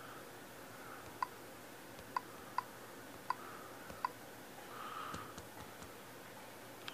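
About five soft, short clicks at uneven intervals from taps on a Nexus 7 tablet's touchscreen, over faint room hiss.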